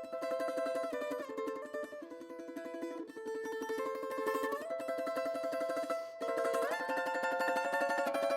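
Background music: a melody played on a plucked string instrument with quickly repeated picking, the notes stepping up and down.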